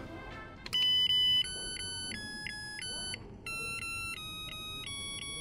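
Rice cooker playing its electronic start tune as cooking begins: a short melody of pure beeping notes that step between pitches, in two phrases.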